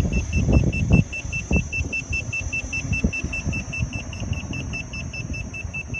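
Electric unicycle (KingSong KS-14) warning beeper beeping rapidly and steadily, about five short high beeps a second, while being ridden. The riders take all this beeping for a sign that something is not right with the wheel. Wind rumbles on the microphone underneath.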